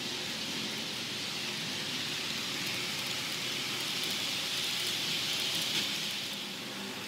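HO-scale model train, a PIKO electric locomotive hauling red double-deck coaches, running along the track: a steady rushing whir of wheels on rail. It swells as the coaches pass close and drops back about six and a half seconds in, with light clicks over the rails.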